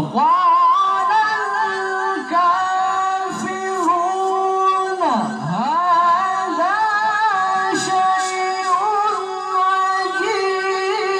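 A man's voice reciting the Qur'an in melodic tilawah style into a microphone, holding long high notes with ornamental turns and wavers, in several drawn-out phrases broken by short breaths.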